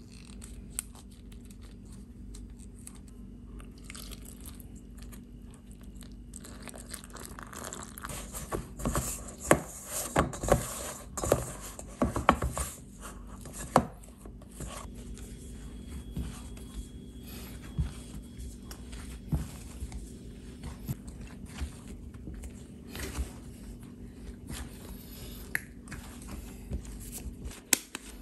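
Bread dough being mixed by hand: a spatula scraping and knocking around a stainless steel mixing bowl, busiest and loudest in the first half, then sparser taps and handling noises as the dough is worked. A faint steady hum runs underneath.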